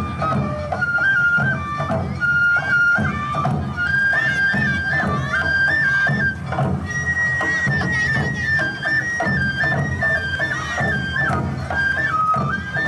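Awa Odori festival music: a bamboo flute playing a quick, stepped melody over a steady beat of drums and percussion.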